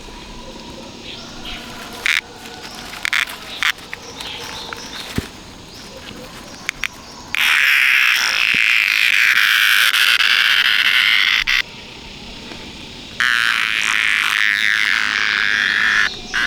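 Frogs calling in a loud chorus in two long spells, from about seven seconds in to nearly twelve and again from about thirteen seconds to near the end, each starting and stopping abruptly. Between the spells, quieter background with a few sharp clicks.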